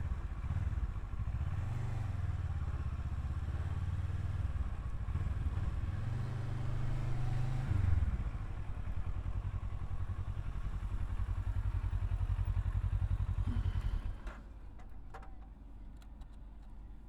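Kawasaki Versys 650's parallel-twin engine running while the motorcycle is ridden, its pitch rising and falling as it speeds up and slows. About 14 seconds in it drops to a much quieter low running sound, with a few sharp clicks.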